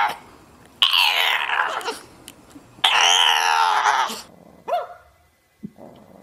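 Bulldog puppy vocalizing: two drawn-out whining howls of about a second each, falling in pitch, then a short whimper.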